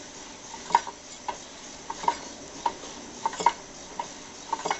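Honda G100 engine being turned over slowly by hand to feel for the little compression it has left, with badly worn piston rings and a scored bore. It makes a run of light, irregular metallic clicks and ticks, about two a second.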